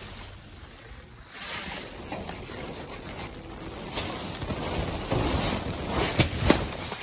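Rustling and handling noise of plastic trash bags being moved about in a dumpster, over a steady hiss. It grows louder about four seconds in, with a few sharp knocks near the end.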